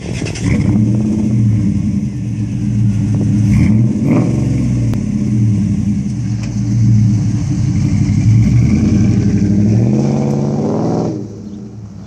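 Dodge Ram Rumble Bee pickup's 5.7-litre Hemi V8 exhaust idling loudly, with one quick rev about four seconds in and a slower climb in revs from about eight seconds. The sound drops off suddenly near the end, leaving a much quieter engine sound.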